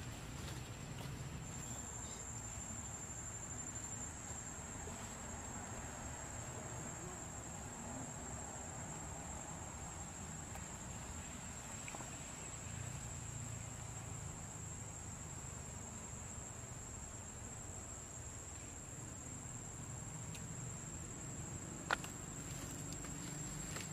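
Steady high-pitched drone of insects, with a low rumble underneath and one sharp click near the end.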